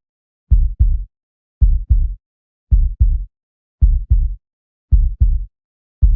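A heartbeat: slow, even lub-dub double beats, low and dull, about one every 1.1 seconds (roughly 55 a minute), with silence between them.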